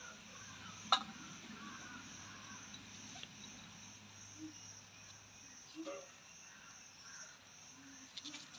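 A large kitchen knife dicing red onion over a ceramic plate: one sharp click of the blade on the plate about a second in, then a few faint taps. A faint steady high hiss runs underneath.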